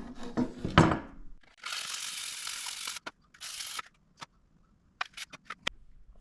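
Light sandpaper rubbing on a metal Stanley combination square: a long rough stroke, then a shorter one, between knocks and sharp clicks of the tool being handled.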